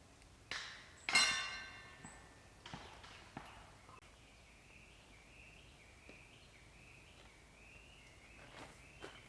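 A few knocks and clicks from objects being handled, the loudest about a second in: a sharp clink that rings briefly, like metal or ceramic struck together. After it comes a faint, wavering high tone.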